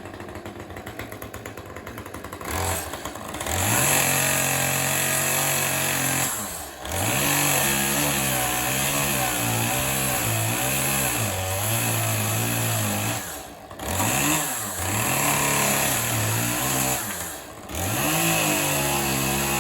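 Chainsaw running at high revs in several long bursts after a few seconds at idle. It drops back briefly between bursts, about three times.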